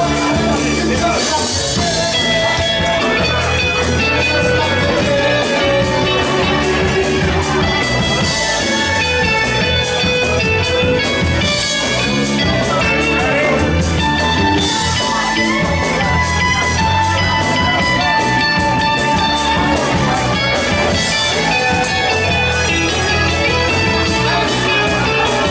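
Live rock band playing in a bar, heard from within the crowd: electric guitars, bass and a drum kit keeping a steady beat.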